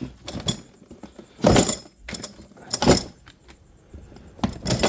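Plastic toolbox drawer being taken out and handled: a series of clunks and rattles, the loudest about a second and a half in and again near three seconds.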